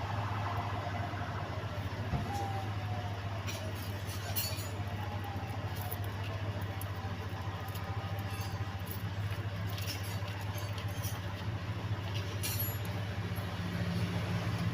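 A steady low engine-like drone, with scattered light metallic clicks and scrapes as old torn gasket material is picked off the throttle body mounting.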